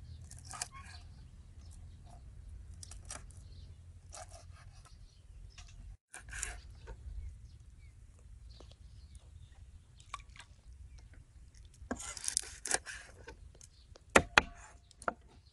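Raw shrimp shells crackling and scraping as they are peeled and cut with a knife on a wooden chopping board, in short rasps every second or two, with two sharp knocks near the end.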